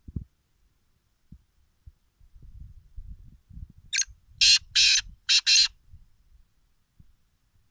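Partridge (teetar) giving a harsh call of four short notes in quick succession, over about a second and a half.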